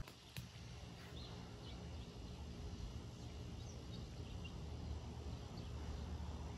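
Faint outdoor ambience: birds chirping here and there over a low, steady rumble.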